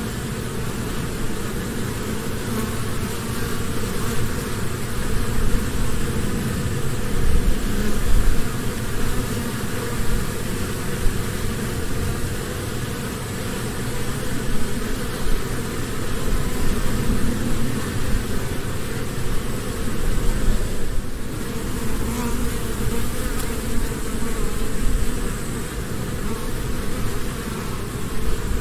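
Honeybees buzzing en masse in a hive: a dense, steady hum that gently swells and eases, briefly thinning about two-thirds of the way through.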